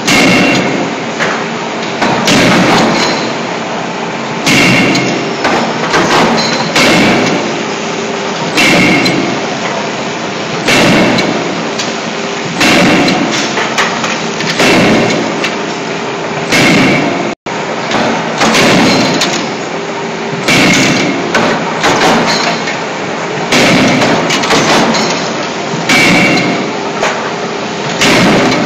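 CNC hydraulic forging hammer striking hot steel scissor blanks, with clusters of heavy blows about every two seconds, some leaving a metallic ring, over the steady hum of the machine.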